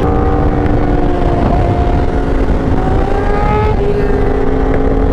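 Yamaha R1 inline-four with a titanium Racefit half-system exhaust running under way, its note climbing gently and then changing pitch a little under four seconds in, over a heavy low rumble of wind.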